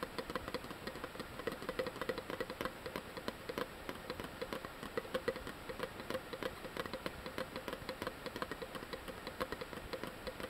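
SteriPEN UV water purifier being stirred in a plastic Nalgene bottle of water during its one-litre treatment cycle: a quick, irregular patter of light knocks and sloshing.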